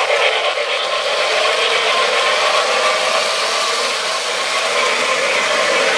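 Electric O gauge model trains running on three-rail track: the steady running noise of wheels on the rails and their geared motors.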